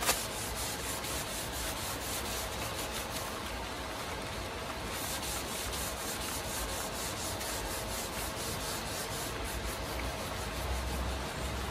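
Cloth wiping a rain-wet, rusty steel flat bar in quick repeated back-and-forth strokes.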